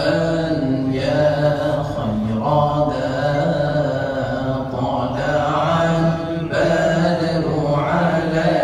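A man singing an Urdu hamd, a devotional song in praise of God, into a microphone, drawing out long held notes that waver and glide between phrases.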